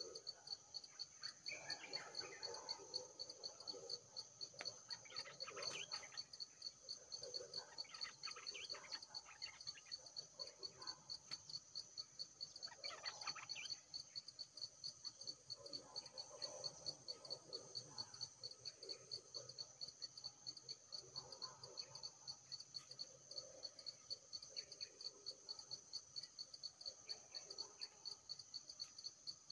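Steady, finely pulsing high trill of a forest insect chorus, with scattered fainter, irregular sounds beneath it.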